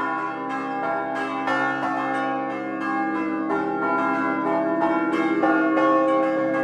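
Swinging church bells of a five-bell ring in C, hung in wooden headstocks and frame and rung by hand: strikes overlapping in an irregular rhythm, each leaving a long ringing tone.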